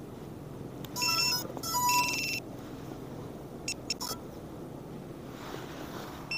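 A 7-inch FPV racing drone plays its electronic startup beeps as its battery is connected: two short runs of beeps about a second and two seconds in, followed by a few brief clicks.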